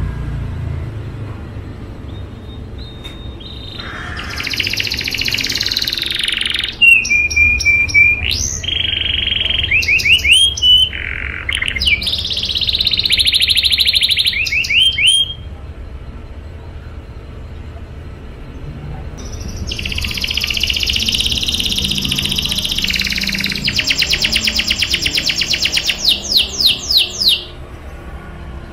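Domestic canary singing its rolling song: two long phrases of fast trills and held whistled notes, the first starting a few seconds in, the second after a pause of about four seconds.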